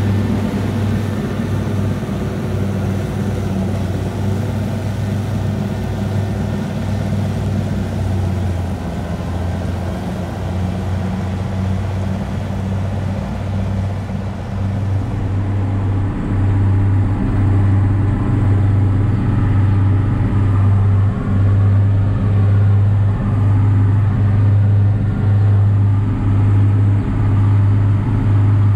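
Straight-piped Massey Ferguson 6180 diesel engine running steadily at working revs while mowing, a constant low drone. About halfway through it becomes louder and fuller.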